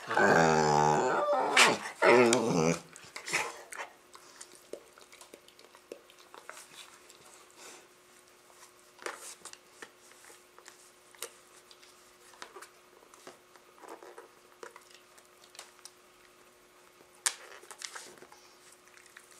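Dogs play-growling: two loud, wavering growl-like vocalizations in the first three seconds, then faint scattered clicks and scuffles.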